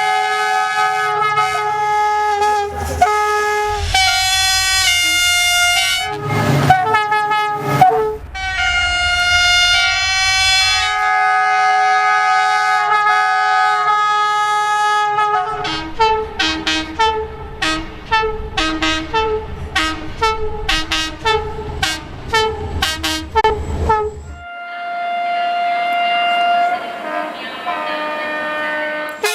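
Train air horns in several clips cut one after another. Long sustained chords come first. About fifteen seconds in there is a rapid run of short toots, about two a second. Near the end there is a different long chord. Under the first part runs the low rumble of the train.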